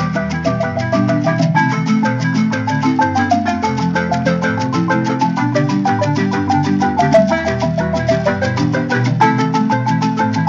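Ensemble of wooden marimbas with tube resonators, a bass marimba among them, playing a fast, interlocking tune: quick, even mallet strikes over low bass notes.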